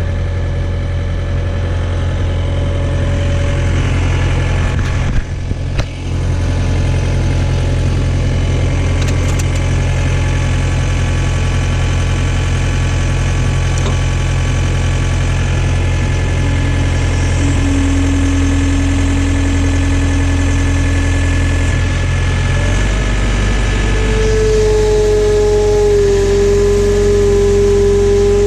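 John Deere 317 skid steer's diesel engine running steadily, with a single clunk about five seconds in. Past the middle a steady hydraulic whine sets in, stepping up in pitch and growing stronger near the end as the machine comes under load.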